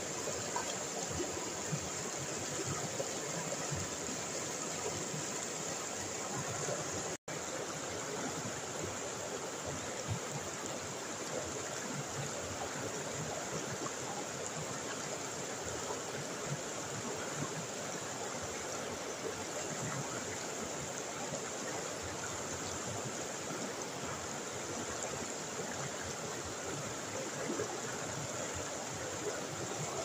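River rapids: water rushing and splashing over rocks and boulders in a steady, even rush. The sound cuts out for an instant about seven seconds in.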